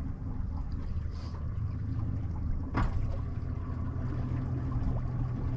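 Small boat on open water: a low steady rumble with water trickling around the hull, and one short sharp knock nearly three seconds in.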